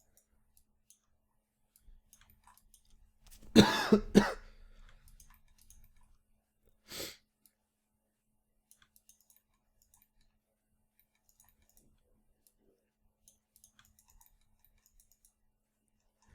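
A man coughing, two loud coughs close together about three and a half seconds in and a shorter one near seven seconds, from a lingering illness. Faint, scattered computer mouse clicks fill the rest.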